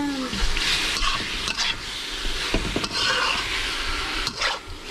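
Fish pieces and curry paste frying in oil in a pan, sizzling steadily, while a spatula stirs them with short scrapes and knocks against the pan.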